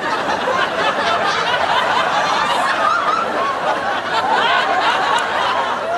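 Studio audience laughing: a continuous wash of many people's laughter and chuckles.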